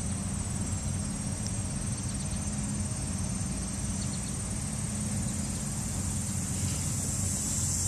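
Insects trilling steadily in a high, finely pulsing band, over a low steady hum.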